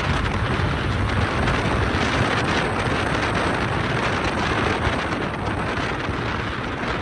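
Steady wind rush and tyre rumble from a vehicle driving along a paved road.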